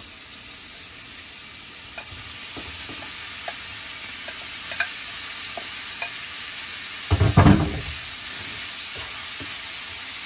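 Marinated chicken strips sizzling in hot oil in a frying pan: a steady hiss with scattered small pops that grows a little louder about two seconds in, as more pieces go in. A brief louder clatter comes about seven seconds in.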